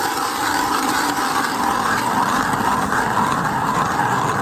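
HT Siberian Tiger 6-inch ice auger with serrated steel blades drilling steadily through ice, a continuous scraping of the blades and flighting against the ice.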